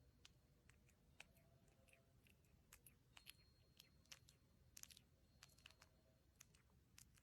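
Near silence: faint room tone with scattered small, irregular clicks, a little cluster of them about five seconds in.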